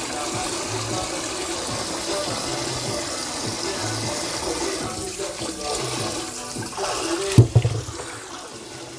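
Water running from a kitchen tap into the sink while beets are rinsed, with a single sharp knock about seven seconds in.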